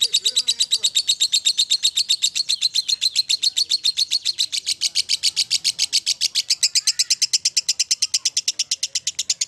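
Fischer's lovebird giving its long, unbroken 'ngekek' chatter: a fast, even run of high, shrill chirps, about nine a second, that never pauses.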